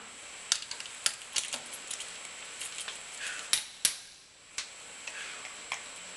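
Metal hand tools clicking and clinking as a hand impact driver with a bit is fitted to an engine's ignition plate bolt. Two sharp metal knocks, about a third of a second apart, come a little past halfway and are the loudest sounds.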